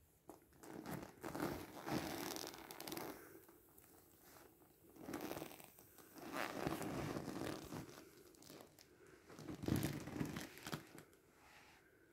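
Inflatable vinyl pool toy being handled and pressed, the plastic crinkling and rubbing in several irregular bouts of a second or two each.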